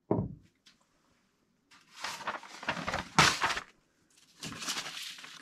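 A metal block set down with a short thud on a wooden workbench, then a large sheet of paper rustling and crackling as it is spread out flat on the bench.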